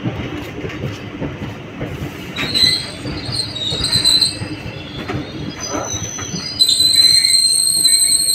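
Indian Railways express passenger coach rolling slowly along a station platform, heard from an open coach door: a low rumble of wheels on the track, with a high metal squeal from the wheels that starts about two and a half seconds in and turns louder and steadier about two-thirds of the way through.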